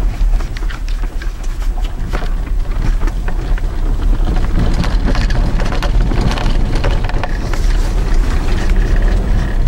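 Vehicle driving on a snow-covered, unplowed dirt road. There is a steady low rumble from the tyres and running gear, with a scatter of crackles and ticks from snow and ice under the wheels.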